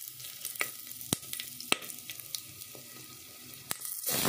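Whole spices (cumin seeds, bay leaves, cinnamon, green and black cardamom, black peppercorns) sizzle in hot oil in an aluminium pressure cooker, with a steady hiss and scattered sharp crackles. Near the end the sizzle jumps much louder as sliced onions go into the oil.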